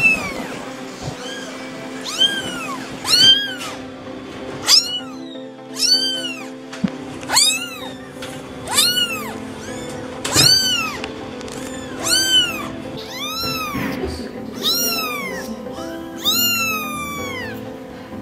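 Young kittens mewing: a dozen or so short, high mews, one every second or so, each rising and then falling in pitch, over steady background music.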